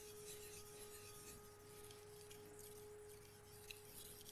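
Near silence with a faint, steady pure tone held throughout.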